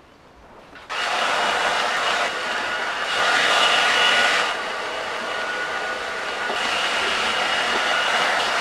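Handheld heat gun switched on about a second in and running steadily, a blowing hiss with a faint whine, louder for a while in the middle. It is blowing hot air over vinyl wrap film to soften it for stretching.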